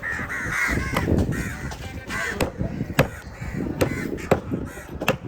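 Crows cawing repeatedly, with sharp knocks of a knife chopping on a board now and then.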